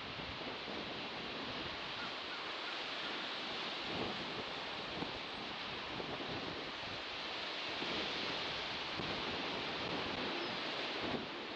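Sea surf washing ashore: a steady rush of waves that swells slightly now and then.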